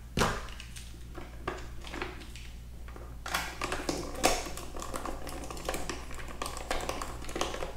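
Small screwdriver driving the screw back into the plastic battery-compartment cover of a Hasbro Black Series electronic helmet, after loading three AAA batteries: light, irregular clicks and scrapes of plastic and metal.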